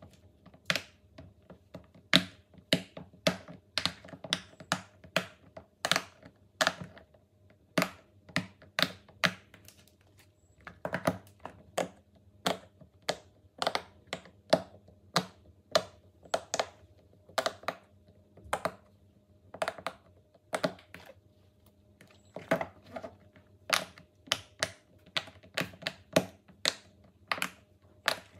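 Silicone pop-it fidget toy bubbles being pressed and popped by fingertips: a long irregular series of sharp clicking pops, about two a second, with a few quick runs of several pops together.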